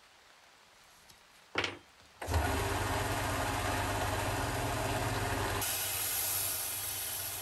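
A short knock, then a benchtop belt sander starts a little over two seconds in and runs with a steady hum. A little over halfway through, the steel axe head is pressed against the moving sanding belt, adding a grinding hiss.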